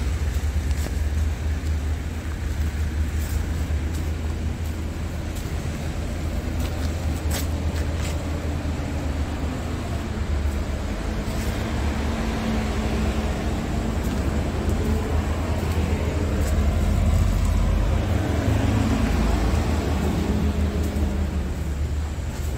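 Diesel truck engine idling with a steady low rumble. In the second half a higher engine note swells and fades.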